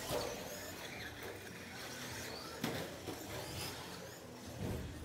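Electric stock-class RC short-course trucks (Traxxas Slash) racing: the motors whine up and down with the throttle, mixed with tyre noise and a sharp knock about two and a half seconds in.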